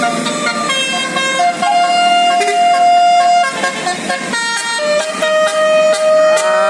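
Telolet basuri bus horn, a multi-tone electric horn, playing a melody of held notes that step from pitch to pitch, some notes overlapping, with a note sliding upward near the end.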